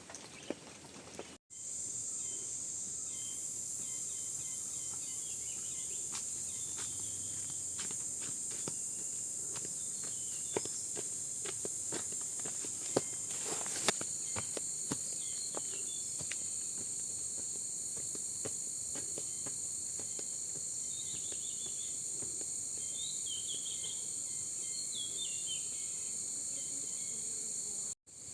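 A steady high-pitched insect chorus, like crickets or cicadas, starting abruptly about a second and a half in. Scattered light clicks and taps and a few small chirps sound over it.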